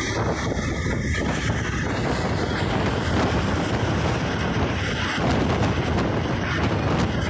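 Heavy wind buffeting the microphone from the open window of a moving train, with a loud, steady rush and low thumping over the train's running rumble.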